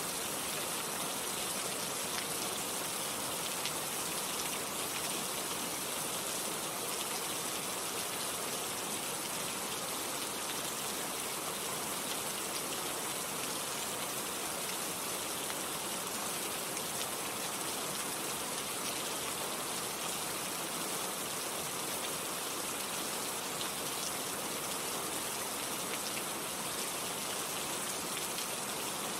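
Rainforest rainstorm: steady rain falling as a continuous, even hiss that never lets up.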